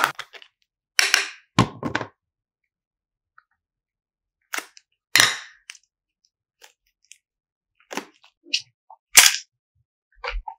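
Short, sharp pops and crackles from a plastic hexagon candy box and soft pink clay being handled: the clay is pressed out of the box and stretched by hand, giving separate snaps every second or so, the loudest near the end.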